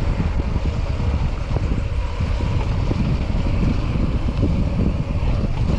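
Wind buffeting the microphone of a camera on a moving mountain bike: a loud, rough, steady rumble, with faint rattles and tyre noise on a muddy trail beneath it.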